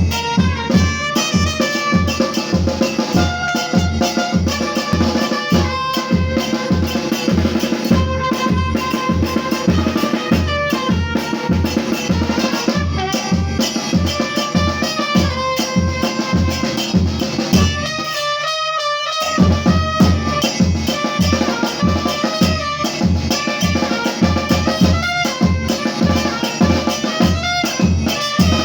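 Upbeat music with a steady drum beat, a little over two strokes a second, under a stepping melody line. About two-thirds of the way through, the drums drop out for about a second, then come back in.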